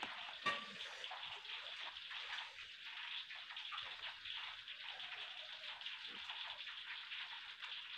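Steady, soft patter of rain, with a light click about half a second in.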